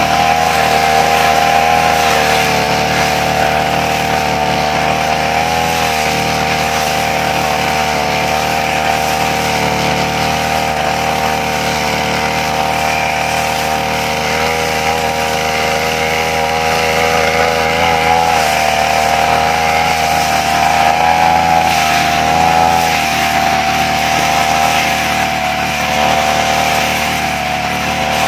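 Petrol brush cutter clearing grass, its engine running steadily at high speed, the pitch dipping slightly now and then.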